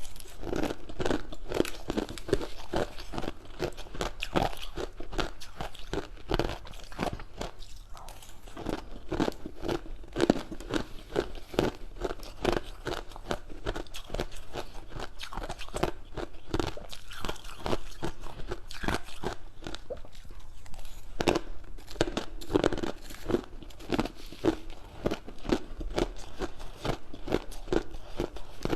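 Crunchy food being bitten and chewed: a steady run of irregular crunches.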